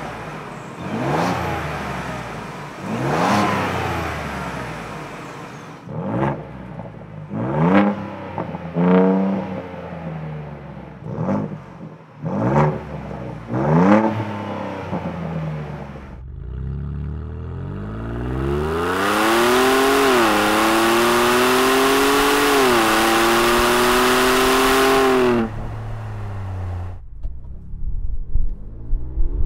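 Ford Bronco's 2.7-litre twin-turbo EcoBoost V6 being revved in a series of quick blips, first through the stock exhaust and then through the MRT King of the Hill straight-through, muffler-delete axle-back with turn-down tip. The MRT revs are aggressive and loud, with some rasp high in the rev range. About two-thirds of the way in comes a long hard acceleration whose pitch climbs and drops back twice at upshifts, ending suddenly, and near the end the engine is heard low and quieter from inside the cabin as the truck pulls away.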